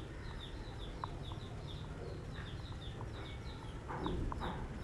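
Birds chirping in the background: short, high, falling chirps repeated a few times a second, with an occasional shorter, lower call.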